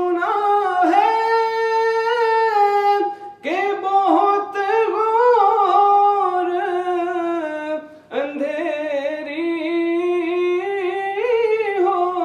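A man singing a naat, an Urdu devotional song in praise of the Prophet, unaccompanied: three long held phrases with wavering ornaments, with short pauses for breath about three and eight seconds in.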